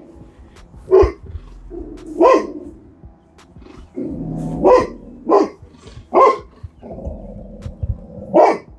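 Yellow Labrador retriever barking six times in short separate barks, with low growling between some of them. It is alarm barking at a perceived intruder, a life-size stuffed toy tiger.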